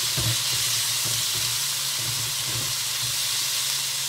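Spice paste sizzling in oil in a non-stick wok while a spatula stirs it, scraping across the pan about every half second: the paste being fried until fragrant before the meat goes in.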